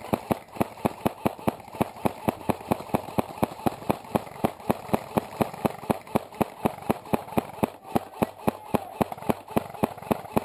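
Airsoft rifle firing single shots in rapid, steady succession, about four to five a second, each a short sharp pop, starting suddenly.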